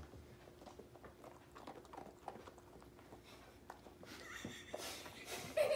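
Dalmatian chewing a dog biscuit, with faint, irregular crunching clicks.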